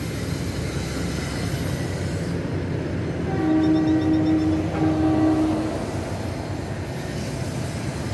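Horn of a DR3000 diesel multiple unit sounding two blasts, about a second each, over a steady low rumble.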